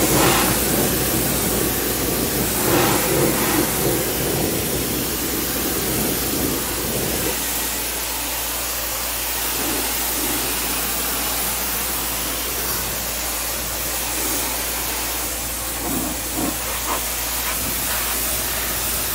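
Giraffe Tools Grandfalls electric pressure washer's water jet spraying against a truck's tire and steel wheel: a loud, steady hiss of spray with a low hum underneath. A deeper splashing rumble fades about seven seconds in.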